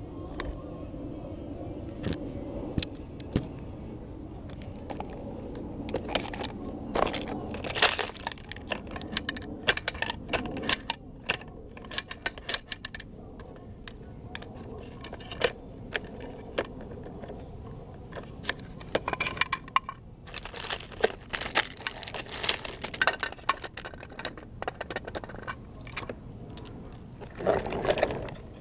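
Bruder plastic toy garbage truck handled and pushed by hand on concrete: wheels rolling and scraping, with many sharp plastic clicks and clacks from the truck and its toy trash bins.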